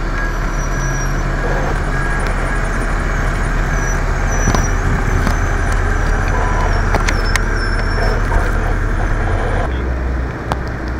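Fire engine's diesel engine idling with a steady low hum under a dense wash of noise; the hum shifts lower near the end.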